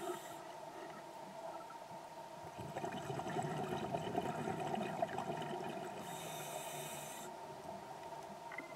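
A scuba diver's breathing heard underwater: a bubbly rumble of exhaled air from about two and a half seconds in, then a short regulator hiss of the next breath at about six seconds. A steady faint hum runs underneath.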